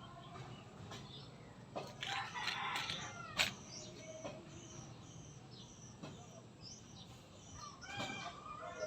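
Bird calls: repeated short high chirps, with a louder, harsher call about two seconds in and another near the end.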